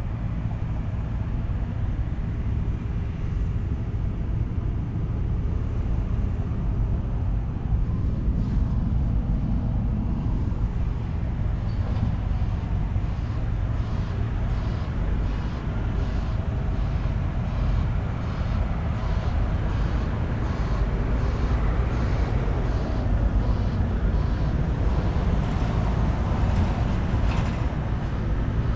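Steady low engine rumble, with a faint regular ticking about every half second through the later part.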